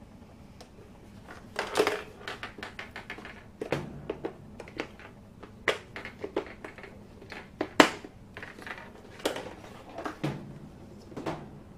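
Irregular plastic clicks and knocks from a toy tabletop pinball machine being handled, tilted and set back down, the loudest knock about eight seconds in.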